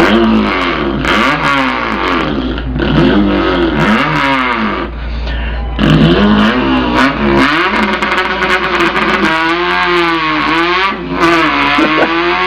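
A man imitating an import car's engine with his mouth, its pitch climbing and dropping again and again like revs rising through gear changes, with a wavering held note near the end.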